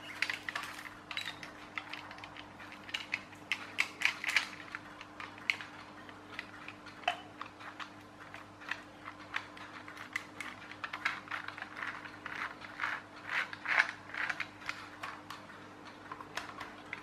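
Irregular plastic clicking and rattling from a clockwork toy tractor's exposed gear train and ratchet as the toy is handled and its wheels and gears are turned by hand, with plastic parts knocking together.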